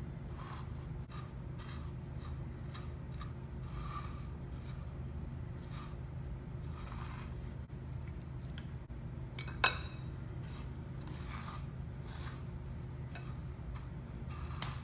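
Hands pressing and rubbing raw chicken strips into panko breadcrumbs on a ceramic plate, making soft, scattered crumbly rustles. One sharp click sounds about ten seconds in.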